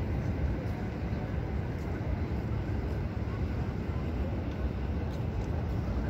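Steady outdoor ambience: a low, even rumble with a faint murmur of distant voices.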